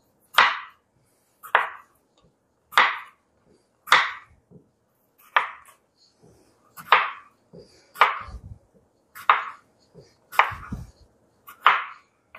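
Chef's knife slicing through a cucumber and striking a wooden cutting board: sharp, single chops at a slow, even pace, about one every second and a bit, around ten in all.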